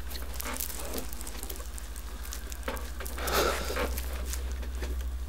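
A man's shaky, heavy breathing in short ragged gasps, the strongest a little over three seconds in, over a steady low drone.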